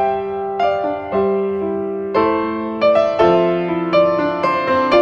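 Background piano music: gentle notes and chords played at an even, unhurried pace.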